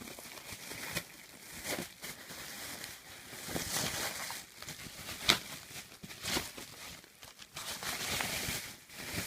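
Packaging of a flat-screen TV being handled as the set is pulled out of its box: irregular rustling and scraping, with one sharp knock about five seconds in.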